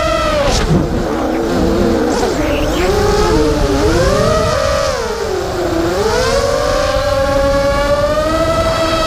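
Racing quadcopter's four brushless motors (XHover XH2204 2300KV) whining, their pitch rising and falling with throttle. The whine dips sharply about five and a half seconds in and then climbs back high, over a steady rush of wind noise.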